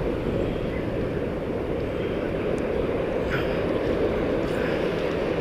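Steady low rumble of wind buffeting the microphone, with surf washing on the beach.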